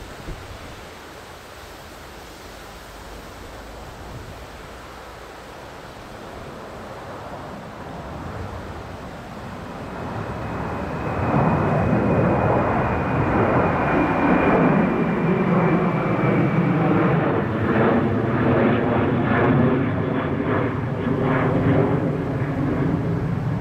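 Jet airliner passing close. Its engine noise builds over about ten seconds into a loud, steady rush with a high whine that drifts slightly lower, then cuts off abruptly near the end.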